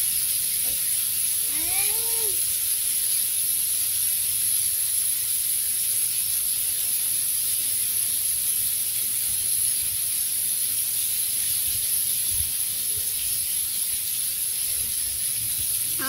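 Steady rushing hiss of a tall, thin dry-season waterfall falling down a rock face, with a steady high-pitched whine above it.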